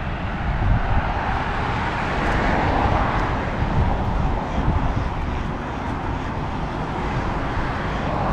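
Steady outdoor noise of road traffic, with a constant low rumble and a swell about two to three seconds in.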